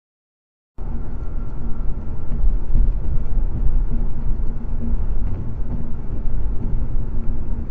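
Steady low road and engine rumble of a car cruising on a highway, heard from inside the cabin through a dash cam's microphone, starting about a second in after a moment of dead silence.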